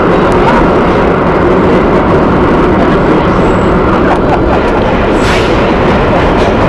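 Vintage IRT Lo-V subway car running through the tunnel, heard from inside the car: a loud, steady rumble of wheels on rail with a few clicks over the rail joints and faint brief squeals.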